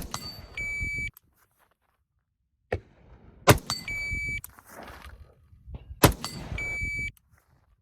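Shot-timer beeps and single rifle shots from a B&T APC 223 in .223: a beep about half a second in, a shot about three seconds later, another beep, a shot about six seconds in, then a last beep. Each half-second beep is the start signal and is followed by one shot once the rifle is in position. A first shot falls right at the start.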